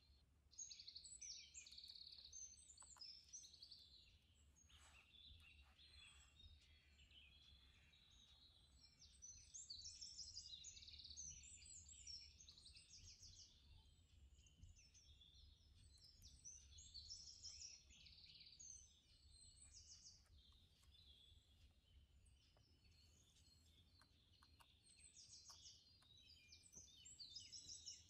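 Faint birds chirping and singing in quick, repeated phrases, over a low steady hum.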